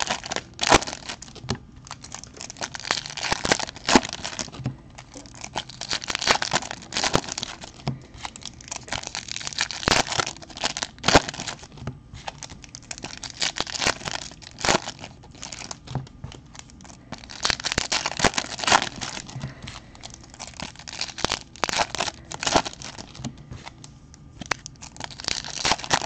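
Baseball card pack wrappers being torn open and crinkled by hand, in irregular bursts with sharp crackles.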